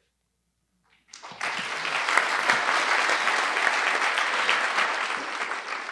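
Audience applauding, a dense patter of many hands clapping that starts about a second in and keeps going.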